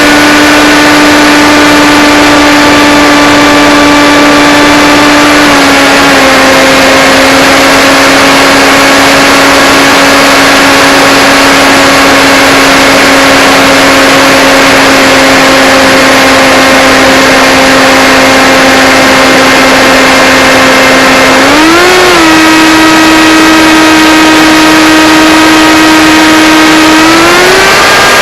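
Blade Theory Type W FPV drone's electric motors and propellers whining loudly over a rushing hiss, the pitch shifting with throttle: a small drop about five and a half seconds in, a quick rise and fall about three-quarters through, and a climb near the end.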